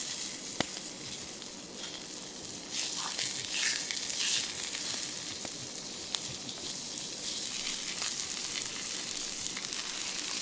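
Burgers and onions sizzling in a frying pan over a campfire, a steady hiss that swells for a moment midway, with a couple of sharp pops.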